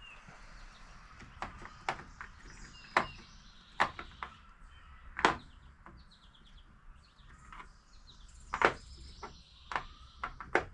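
Scattered sharp metal clicks and knocks, about a dozen spread irregularly, as the kick-starter cover is fitted back onto a scooter's CVT case; the loudest come a little past the middle and again near the end.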